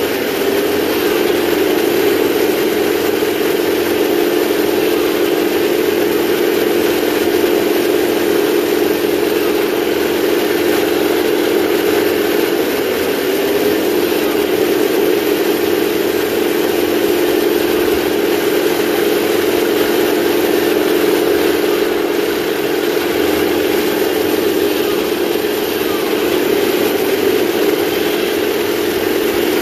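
Electronic engine-sound unit of a 1/16 scale RC tank playing a steady, loud simulated tank engine running, with a hum that holds almost constant pitch and wavers briefly a few times as the tank drives.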